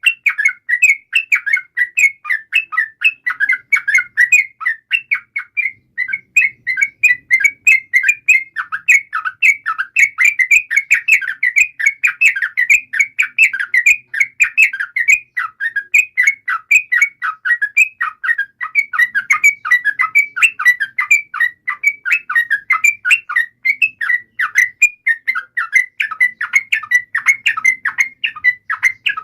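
Yellow-vented bulbul (trucukan) singing a long, unbroken run of quick chattering notes, many a second, with no pauses. This kind of recording is used as a lure to set other bulbuls singing.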